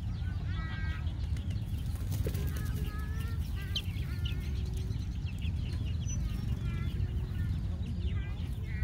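Chickens clucking in short repeated calls, with higher chirps mixed in, over a steady low rumble.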